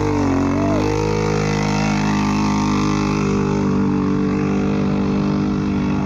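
Off-road vehicle engine running at a steady speed.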